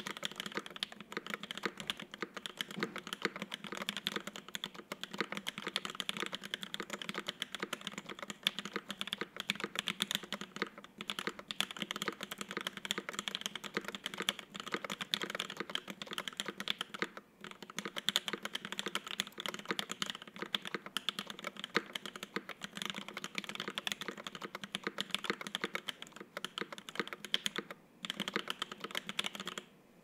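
Rapid, continuous typing on a UTD 360C custom mechanical keyboard with Alpaca V2 linear switches, lubed and filmed, on an aluminium plate with no foam, under GMK keycaps. Dense clacking keystrokes with a couple of short pauses.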